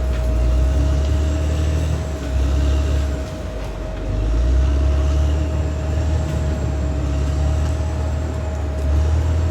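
Caterpillar D6R XL crawler bulldozer's diesel engine working under load: a deep rumble that eases briefly about three seconds in and then builds again, with a steady high whine over it.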